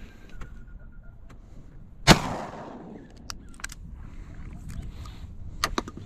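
A single shotgun shot about two seconds in, its report rolling away for about a second. A few sharp clicks follow later.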